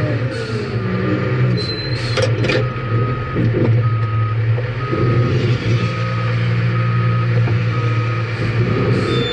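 Cat 615 paddle-wheel scraper's diesel engine running steadily, with a few sharp knocks in the first seconds. From about three seconds in, a backup alarm beeps about six times, one beep a second.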